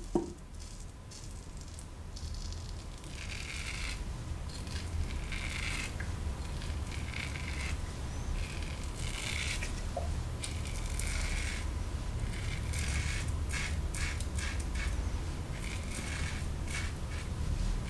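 Merkur 34C closed-comb safety razor with a Treet Carbon blade scraping through shaving-cream lather and stubble in many short, repeated strokes on an oblique pass, each stroke a crisp rasp.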